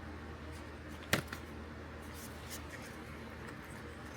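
Quiet handling of the drone kit's packaging and parts, with one sharp click about a second in and a few faint ticks, over a steady low hum.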